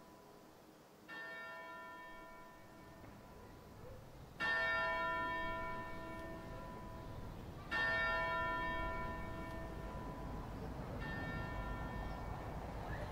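Church bell tolling slowly: four single strokes a little over three seconds apart, each ringing on and fading. The second and third strokes are the loudest. A low rumble builds near the end.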